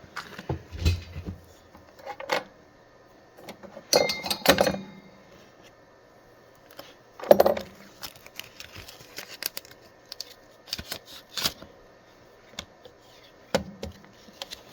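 Small tools and parts being handled on a workbench: scattered clicks, light knocks and brief metallic clatters, with a denser cluster about four seconds in and a sharp clack about seven seconds in.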